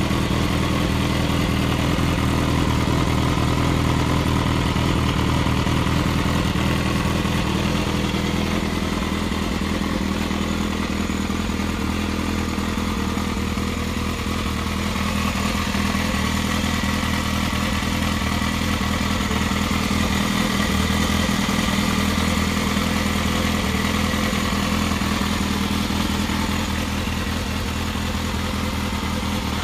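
Yamaha XJR400's air-cooled inline-four engine idling steadily through a WR'S aftermarket silencer.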